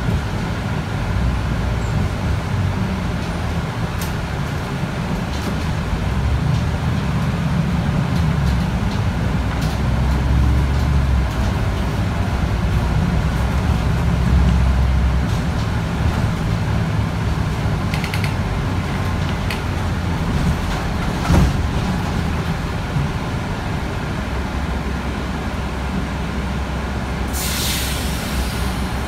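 Mercedes-Benz O405G articulated bus heard from inside the cabin, its diesel engine and drivetrain running with a steady low rumble that swells for a while in the first half. A brief knock comes about two-thirds of the way through, and a short burst of air hiss from the bus's pneumatics comes near the end.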